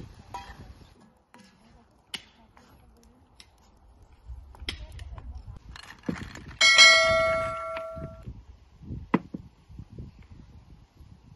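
Dishes and utensils being handled on a table: scattered light knocks and clicks. About six and a half seconds in, a bowl is knocked and rings out with one bright tone that fades over about a second and a half.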